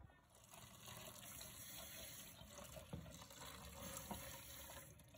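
Faint sound of tap water running into a Lab-Box film developing tank in a stainless steel sink, the water overflowing the tank and draining away: the final running-water wash of the film after fixing.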